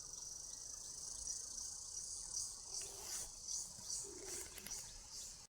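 Steady high-pitched chirring of insects, with a faint pulsing, that cuts off suddenly near the end.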